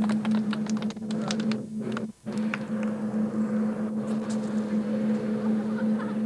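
Boeing Vertol 107 (HKP 4) tandem-rotor helicopter running close by with a steady drone as it hovers low and pitches nose-up. Scattered clapping in the first second or so, and a brief cut-out in the sound about two seconds in.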